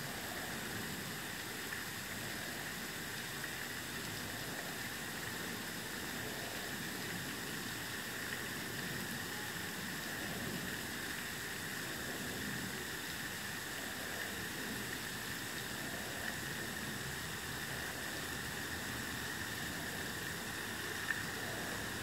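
Steady outdoor background hiss with no distinct events, and one short faint click about a second before the end.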